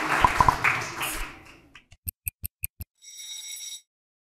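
Applause fading out over the first second and a half, then a stopwatch logo sting: about six quick ticks followed by a short, bright ringing chime.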